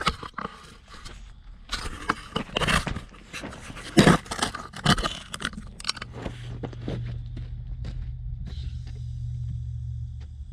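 Clattering and scraping handling sounds, then about six seconds in a 2000-watt portable generator's engine starts and runs steadily with a low hum. A high steady whine joins a couple of seconds later.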